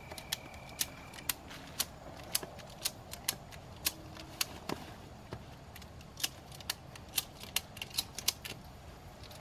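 Ratchet strap being cranked to pull woven wire fencing taut through a fence stretcher bar: sharp ratchet clicks at irregular spacing, about two a second.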